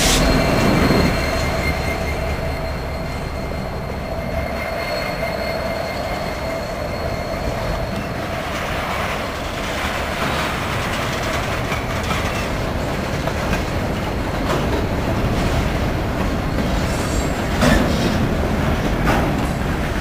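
Freight cars rolling slowly past on the rails: a steady rumble of wheels, with a thin wheel squeal over the first several seconds and a few sharp clacks near the end as wheels cross rail joints. The diesel rumble of the trailing EMD SD75I locomotive fades out in the first second.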